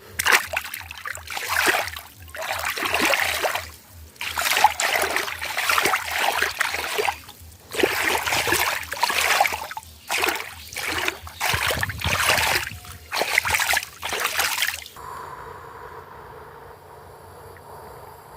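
Water splashing and pouring in irregular loud bursts, giving way about fifteen seconds in to a quieter, steady background.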